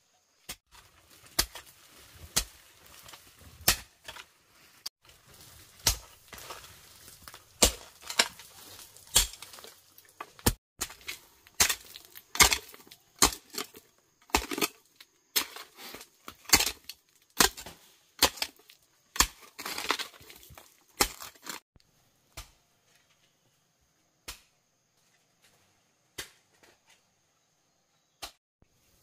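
Hoe blades chopping into earth in a steady run of sharp strikes, about one a second, with soil scraping and crumbling between them. The strikes thin out to a few scattered hits over the last several seconds.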